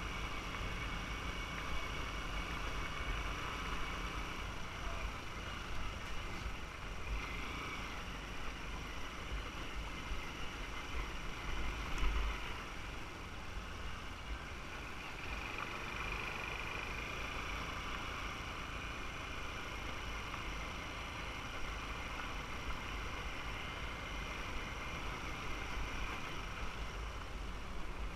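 Motorbike running steadily at riding speed, heard from a camera mounted on the bike, with a low, uneven wind rumble on the microphone. There is one brief louder bump about halfway through.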